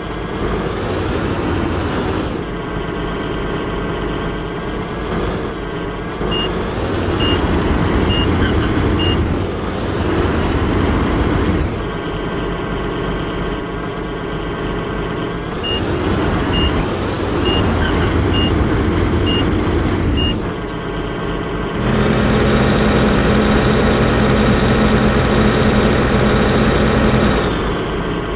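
Excavator engine running and changing pitch as it works under varying load, with a warning alarm beeping about once a second in two runs. Near the end it holds a steadier, harder-working note for several seconds before easing off.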